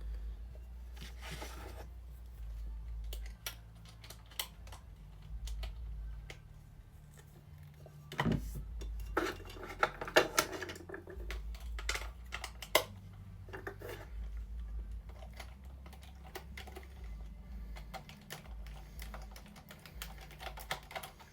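Scattered small clicks and taps of a hard plastic toy being handled, with the busiest stretch a third of the way in, as batteries go into a Buzz Lightyear action figure.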